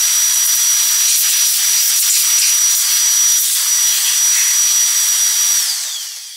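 Shop vacuum running, a steady high whine over rushing air as its nozzle works over the engine. It is switched off near the end, and the whine falls as the motor spins down.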